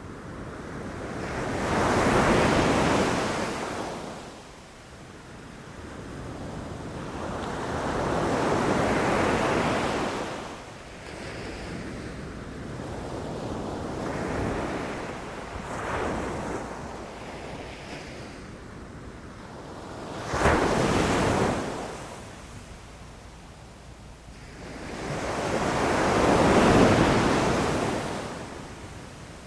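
Ocean waves breaking on a beach, each one swelling and fading, about every five or six seconds. One wave strikes suddenly about twenty seconds in.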